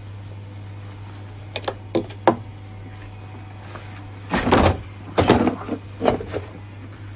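A few light clicks, then several louder bursts of clattering knocks from hard objects being handled, over a steady low hum.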